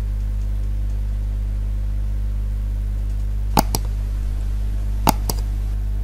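Two computer mouse clicks, each a quick press and release, about one and a half seconds apart. Under them runs a steady low hum.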